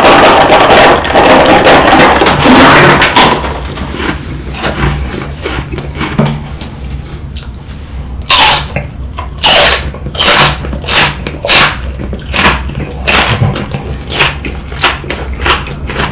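Small crunchy Chocobi snack puffs pour out of a cardboard box into a mouth with a loud rattling rush, crunched as they fall. Later, a raw green chili pepper is bitten and chewed in a string of crisp crunches, about one or two a second.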